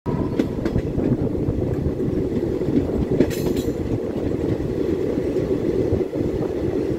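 Passenger train running on the track, heard from the open side of a moving coach: a steady rumble of wheels on rails with a few clicks and clacks. A brief high hiss comes about three seconds in.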